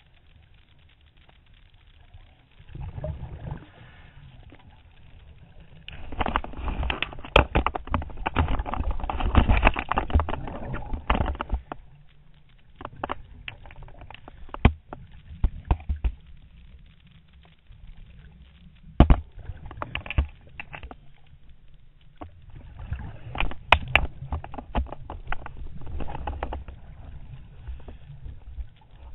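Scuba regulator exhaust bubbles gurgling and crackling, heard underwater. They come in bursts of a few seconds, a breath out every several seconds, with quieter gaps between. A few sharp knocks are mixed in.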